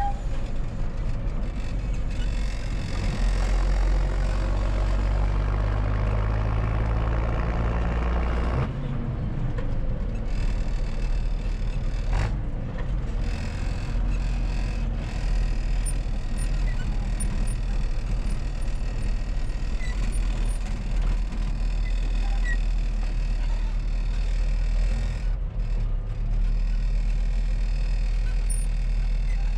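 MB Trac 1600 tractor's diesel engine, heard from inside the cab with the roof hatch open, running steadily under load. It pulls harder for the first several seconds, then eases off about a third of the way in. A single knock comes a few seconds after that.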